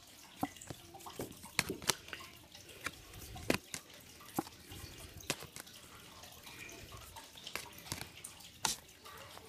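Magic: The Gathering cards being flipped over and dropped onto a pile one at a time: a string of irregular soft clicks and snaps, roughly one a second.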